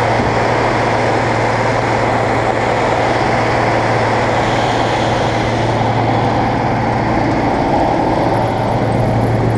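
Bizon Z040 combine harvester's diesel engine running steadily, with a constant low hum, heard close up at the open engine compartment.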